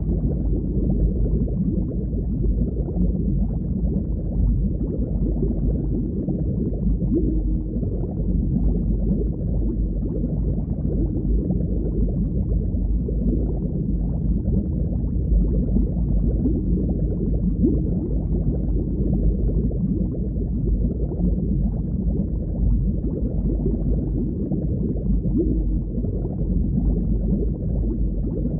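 Underwater ambience: a steady, deep, muffled wash of water noise with no high sounds in it.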